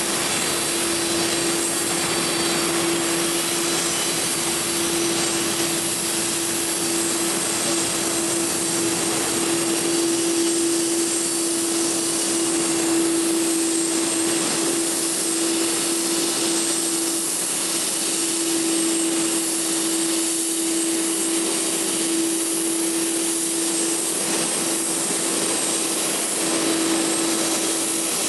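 Steady jet aircraft engine noise: an even whine with a constant humming tone running through it, holding level without building up or fading.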